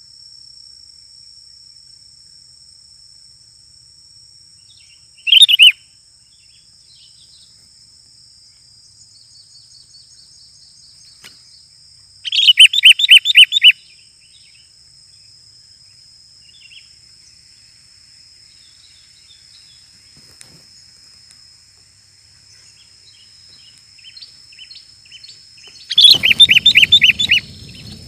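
Sooty-headed bulbul calling in loud bursts of quick chattering notes: one short burst, then two longer runs of about six notes, with softer chirps between. A steady high whine runs underneath, and a brief rustling noise comes with the last burst.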